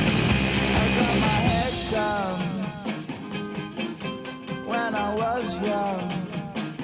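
The Ottawa Senators' goal song, rock music with guitar and a singing voice. A dense, loud passage gives way after about two seconds to a sung melody over the band.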